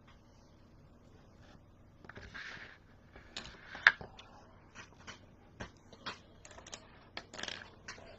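Irregular light clicks and taps, with one sharper, louder click about four seconds in and brief rustling between them.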